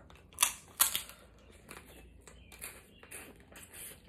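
Close-up eating sounds from snow crab legs: two sharp cracks about half a second and a second in, then a run of lighter clicks and smacks as the meat is bitten and sucked from the shell.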